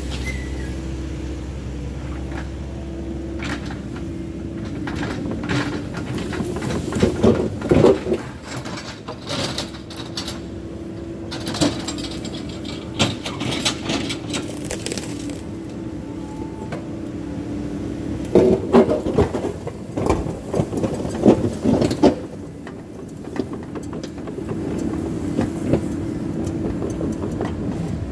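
Cat 308 mini excavator's diesel engine running steadily as the machine works, with several bursts of clanking and cracking as the bucket and thumb handle brush and a log.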